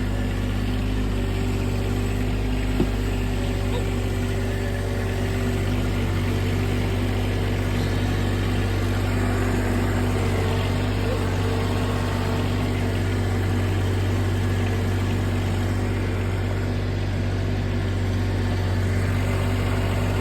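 Compact tractor engine running steadily at a constant speed while it carries a heavy round hay bale on its front-end loader.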